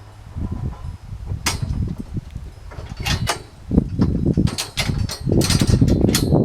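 Irregular knocks and clatters, growing busier and louder in the second half.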